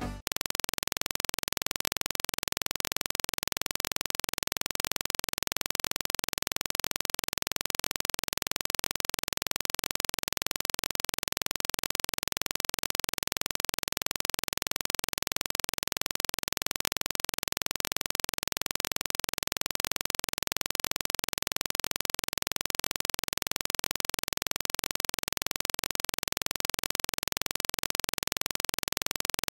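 Steady, even hiss at a constant level, with faint repeating music beneath it.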